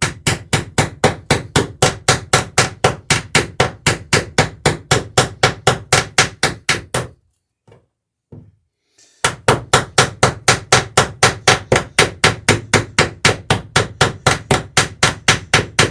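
A hammer rapidly banging rivets in wooden dory planking, about four even blows a second. The hammering stops about seven seconds in and resumes about two seconds later.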